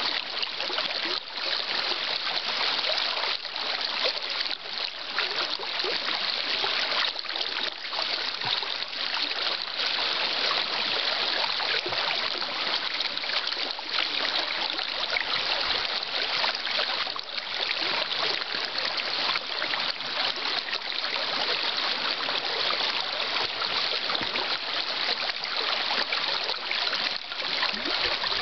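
Shallow river water rippling steadily over a riffle and around fallen logs.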